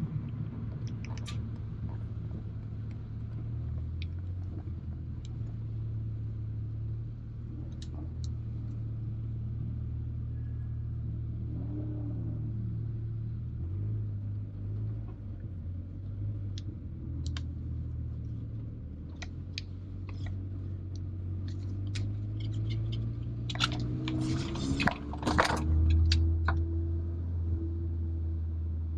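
Engine and road drone of a 2019 VW Golf R's turbocharged 2.0-litre four-cylinder heard from inside the cabin at low, steady revs, with scattered clicks and rattles. Near the end a brief cluster of louder clicks and knocks comes, and then the drone gets deeper and louder.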